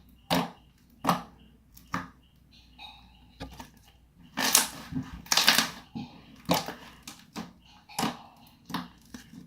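Butter slime being pressed and played with by hand, giving sharp sticky clicks and pops about once a second, with a longer crackling stretch near the middle.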